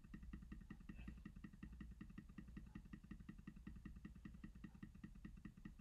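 Faint, fast, even ticking, about nine ticks a second.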